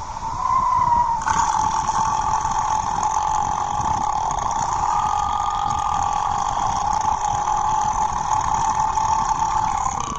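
One long, drawn-out burp, a single steady rough tone that holds for about nine seconds with only slight changes in pitch.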